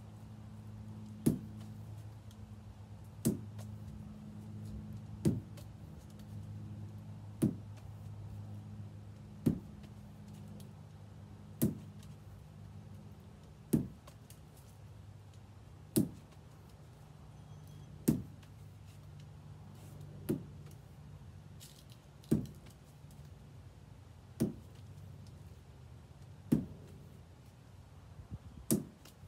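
Lacrosse ball thrown hard against a wall in a wall-ball drill, hitting with a sharp smack about every two seconds, fourteen times in all. A low steady hum runs underneath.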